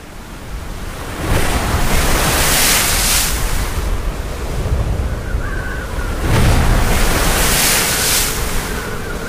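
Strong blizzard wind blowing over the microphone, rising in two long gusts about a second and six seconds in.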